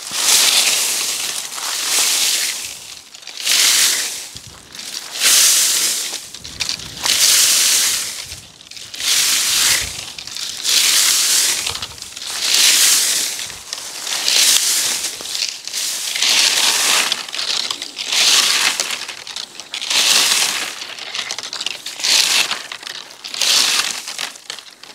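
Slow, regular crunching, one rough stroke about every one and a half to two seconds, repeating steadily.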